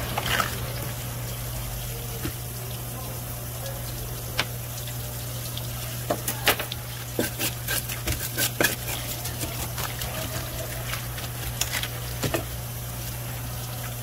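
Water running, as from a tap or hose, over a steady low hum, with a scatter of sharp clicks and knocks from about six seconds in.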